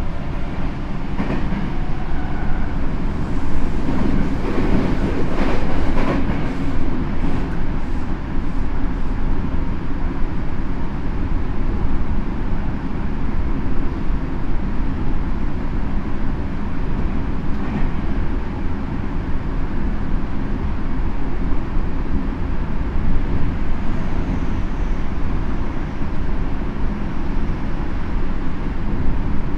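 Tokyo Metro 7000 series subway car running between stations, heard from inside the car: a steady rumble of wheels on rail with a low hum from the running gear. A stretch of wheel clatter comes about four to eight seconds in.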